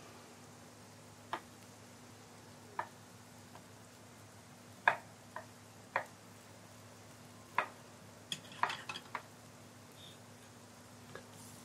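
Chef's knife slicing mushrooms on a wooden cutting board: sharp, irregular knocks of the blade on the board, a few at a time with gaps, then a quicker run of cuts near the end, over a faint steady hum.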